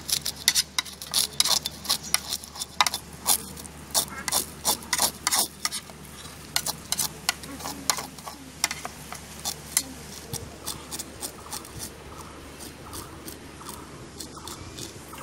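Knife blade scraping the scales off a sand goby on a plastic tray: rapid, repeated rasping strokes that thin out and grow faint after about ten seconds.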